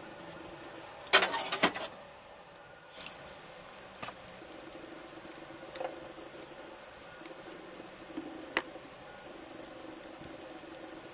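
A quick cluster of sharp clicks and knocks about a second in, then single sharp clicks every second or two, over a faint steady hum.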